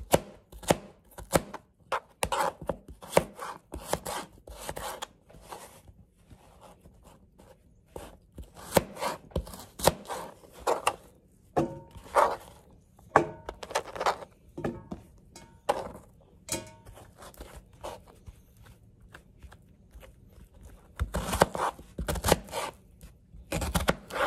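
Kitchen knife dicing peeled raw turnip roots on a cutting board: irregular knocks of the blade cutting through the root and striking the board, with a lull of a few seconds about three quarters through.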